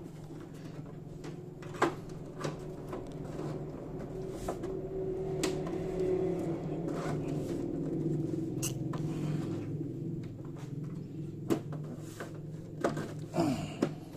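Scattered sharp clicks and knocks of a part being fitted into a desktop PC case by hand, over a steady low hum.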